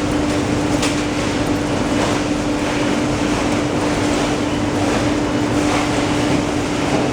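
Steady mechanical running noise with a constant low hum and faint regular ticks about once a second.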